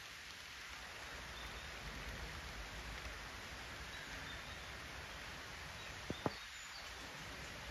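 Steady outdoor ambient hiss with a few faint, distant bird chirps. Two sharp clicks come close together about six seconds in.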